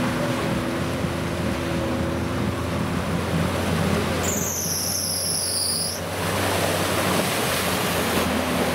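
Suzuki Jimny's engine running under load as it wades through muddy water, with a steady wash of splashing water. About four seconds in, a high whistling squeal dips slightly in pitch and lasts under two seconds.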